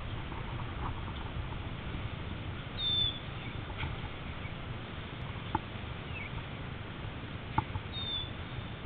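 A bird gives two short high chirps about five seconds apart, over a steady low rumble of outdoor noise with a few faint clicks.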